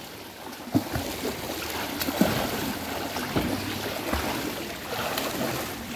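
Water splashing and churning from a swimmer's butterfly stroke, with a soft splash every second or so as the arms and body strike the water.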